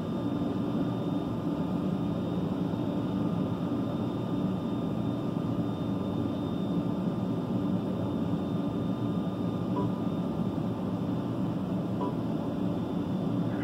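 Steady low drone of vehicle engines running, with an even hum, heard from inside a vehicle's cab.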